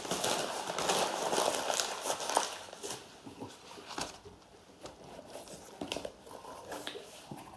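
Packaging crinkling and rustling as it is handled and opened to get the microphone out, louder for the first few seconds, then fainter with a few small clicks.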